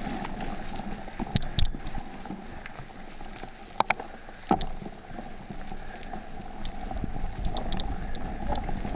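Mountain bike riding on a dirt trail: a steady rumble of tyres rolling over the ground, with a few sharp clicks and knocks about a second and a half in and again around four seconds as the bike rattles over bumps.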